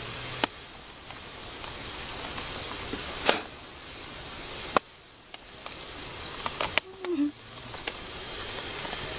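Steady outdoor background hiss with a few sharp clicks and a brief rustle, and a short low falling murmur about seven seconds in.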